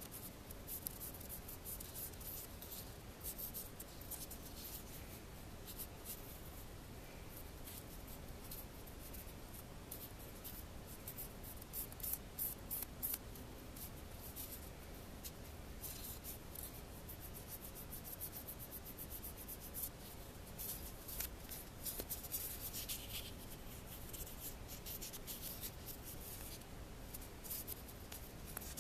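A polishing pad rubbing over a copper wire ring, giving soft scratchy strokes in short, irregular runs. The pad is buffing back the liver-of-sulfur darkening to give the copper an antiqued look.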